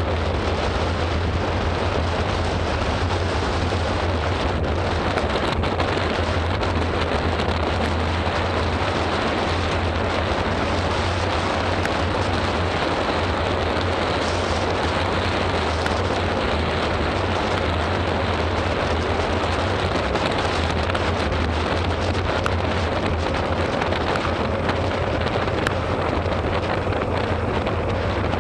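Steady wind rumbling on the microphone of a bike-mounted camera during a fast road-bike descent, under an even hiss of rain on the wet road.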